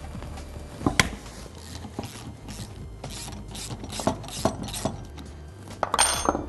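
Socket ratchet clicking in a run of short strokes, about two to three a second, as the nut on a motorcycle rear shock's upper mount bracket is worked off with a wrench holding the other side. A louder metallic clatter near the end.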